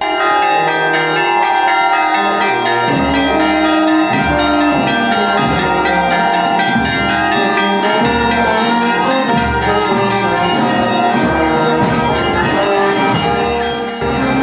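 Monastery church bells ringing a festive peal: several bells struck over and over, their tones overlapping in a continuous clangour. The ringing starts abruptly and dips briefly near the end.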